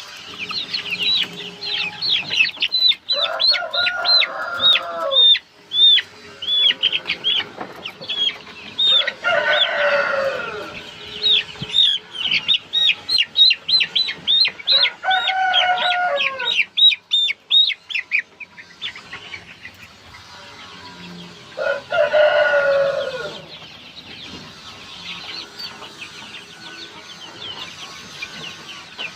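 Young chicks peeping rapidly in a steady stream of short high cheeps. A rooster crows four times, each crow about two seconds long.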